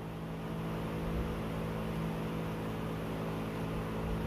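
A steady low mechanical hum made of several held tones over a faint hiss, from a machine running in the room.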